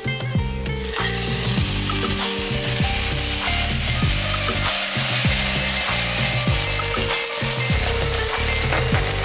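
Hot frying pan of sautéed onions sizzling hard as soaked brown lentils and then water go in; the sizzling hiss jumps up about a second in.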